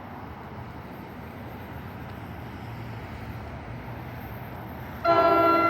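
Steady low rumble, then a short, loud blast of a train horn about five seconds in.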